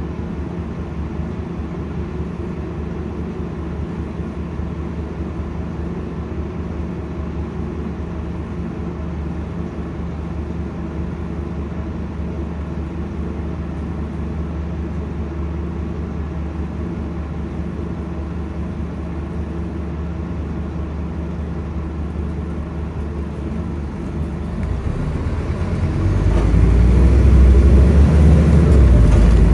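Scania N230UD double-decker bus's diesel engine idling steadily, heard from inside the passenger cabin while the bus stands still. About 25 seconds in, the engine note rises and grows louder as the bus pulls away.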